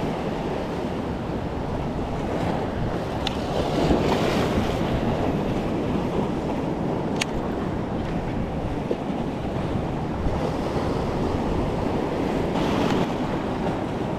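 Ocean surf washing in and breaking against the rocks of a jetty, a steady rushing wash, with wind buffeting the microphone.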